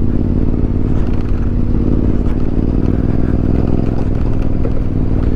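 Motorcycle engine running steadily while the bike is ridden, with an even low drone.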